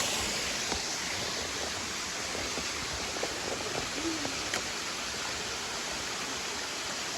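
Steady rushing of a waterfall's falling water, with a few faint ticks over it.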